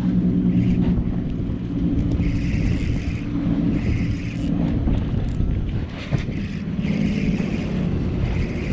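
A low, steady engine drone, with wind rumbling on the microphone.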